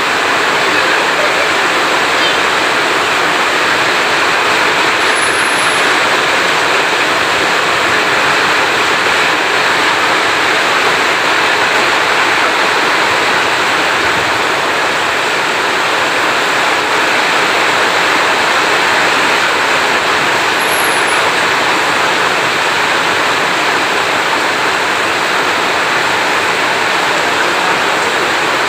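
Heavy rain falling in a steady, even downpour, with no thunder.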